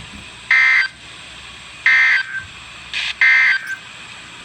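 Emergency Alert System end-of-message tones: three short bursts of warbling two-tone digital data, about a second apart, closing the severe thunderstorm warning broadcast.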